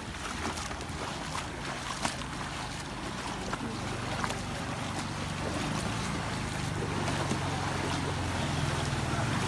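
Small motorcycle and scooter engines running as they ride through floodwater, with water sloshing and splashing around them. The engine hum grows louder in the second half.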